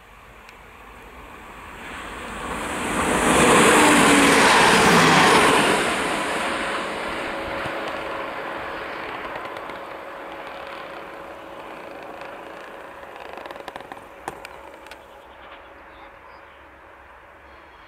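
Diesel railcar SA139-005 (szynobus) passing at speed: a rising rush of wheels on rail and engine with a steady engine tone, loudest about three to six seconds in, then slowly fading as it runs away. A few sharp clicks come about fourteen seconds in.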